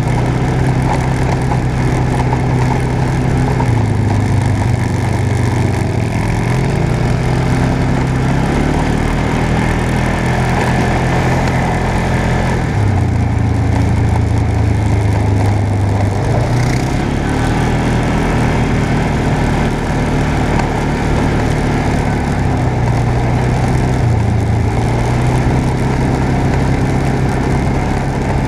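Off-road vehicle engine running steadily under way on a gravel trail, its pitch stepping down and back up several times as the speed changes.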